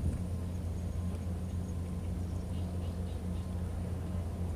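A steady low mechanical hum with a fainter overtone above it, like an engine or machine running without change.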